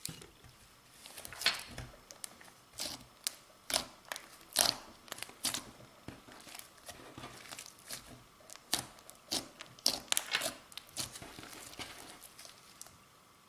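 Clear slime being squeezed and kneaded by hand, making a string of sticky clicks and pops at irregular intervals.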